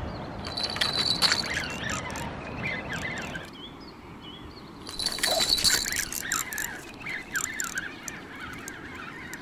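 Birds chirping, broken twice by a short burst of rapid clicking with a steady high tone: about half a second in and again around five seconds in.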